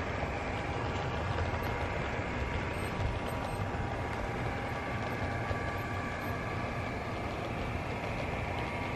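HO-scale model diesel locomotive running, a steady mechanical hum with a thin whine, under the steady hiss of real rain.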